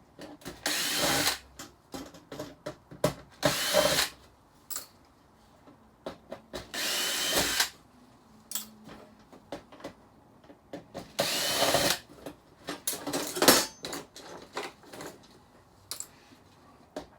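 Cordless power screwdriver or drill backing screws out of a flat-screen TV's chassis, running in short bursts of about a second, each starting with a rising whine, five or six times. Small clicks and clatter of screws and metal parts come between the bursts.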